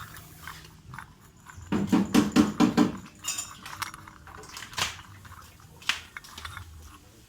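Metal tools at work on a scooter's rear CVT pulley: a quick run of about eight metallic knocks or rattles about two seconds in, then a few separate clinks, as a seal puller works the oil seal out of the pulley housing.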